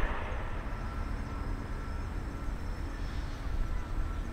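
Distant jet aircraft noise: a low steady rumble with a faint high steady whine above it.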